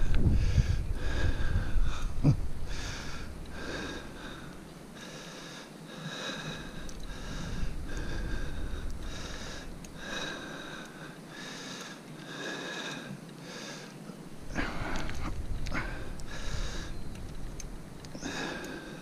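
A cyclist breathing hard and rhythmically close to the microphone, about one breath a second, with wind rumble loudest in the first couple of seconds.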